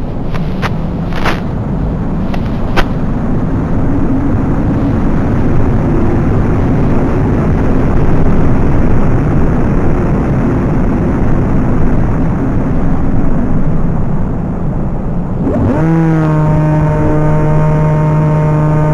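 Loud wind rushing and buffeting the microphone, with a few sharp clicks in the first few seconds. Near the end a steady low hum with overtones comes in.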